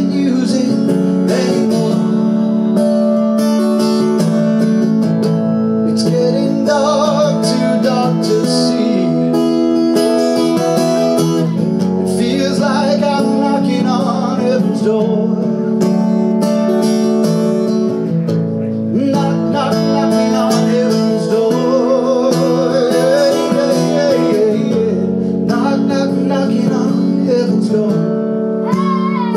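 Acoustic guitar strummed steadily, with a man singing long, held phrases over it in several stretches.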